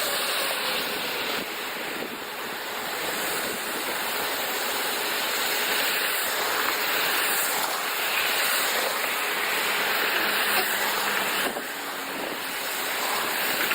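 Steady rushing storm wind with wind buffeting the microphone, briefly easing about a second and a half in and again near the end.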